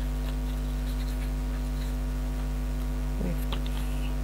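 Steady electrical mains hum, with faint rustles and light taps of paper being handled and pressed down onto card about three seconds in.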